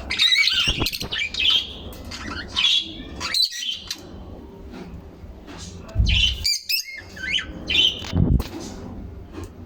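Several birds chirping and squawking in short, repeated calls, busiest in the first couple of seconds. There are low bumps about six and eight seconds in.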